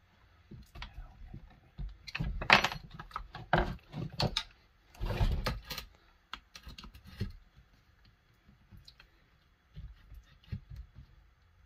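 A screwdriver clicking and scraping against the screws and housing of a Poulan Pro 255 chainsaw while working at a hard-to-reach bolt. The sound comes in irregular rattling bursts, busiest and loudest from about two to six seconds in, then thins to a few light clicks.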